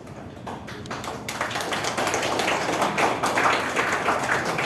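Scattered claps, then applause from a seated audience building about a second in into a steady patter of many hands clapping.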